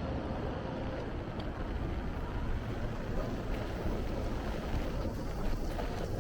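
Steady light rain pattering on an umbrella over a low, continuous city street hum, with a few faint drop ticks.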